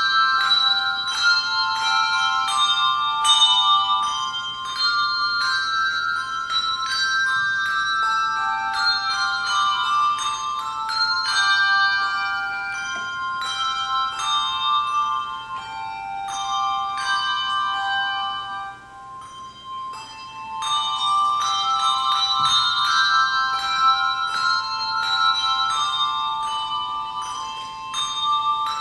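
Handbell choir playing a tune in parts, each bell struck and left to ring, with a short pause about two-thirds of the way through before the ringing picks up again.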